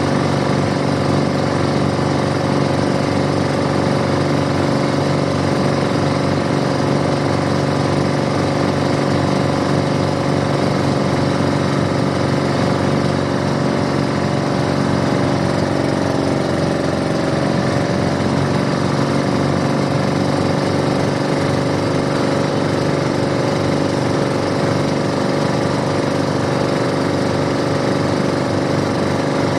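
Small boat engine running steadily, a loud continuous drone whose pitch shifts slightly a little past halfway.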